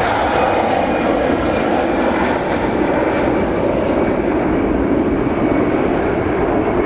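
Airbus A320 airliner's jet engines, a loud, steady rushing noise as the aircraft rolls along the runway, its higher part slowly fading over the seconds.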